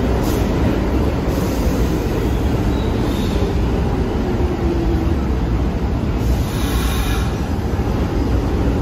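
New York City subway train running, a loud, steady rumble of wheels and motors on the track, with a brief higher-pitched noise about six seconds in.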